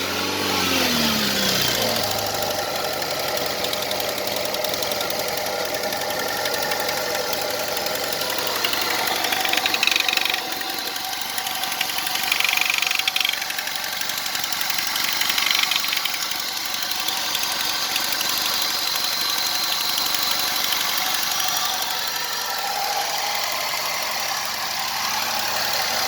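Opel Insignia 2.0 turbo petrol engine (A20NHT/A20NFT) just after starting: the revs drop back over the first couple of seconds, then it idles steadily. Short higher-pitched squeaks come and go a few times midway; this is the start-up squeak the owner is showing.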